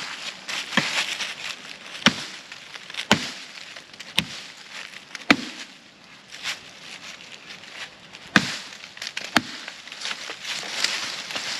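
A knife cutting down onto a wooden board: seven sharp knocks, roughly one a second, with a pause of about three seconds midway.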